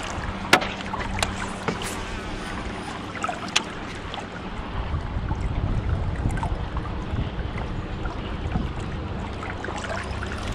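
Wind and water noise around a small fishing boat, with a steady low hum underneath and a few sharp clicks in the first four seconds; the low rumble swells for a couple of seconds around the middle.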